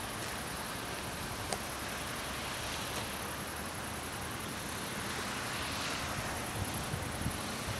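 Steady outdoor hiss of wind moving through tree leaves, with a single faint click about one and a half seconds in.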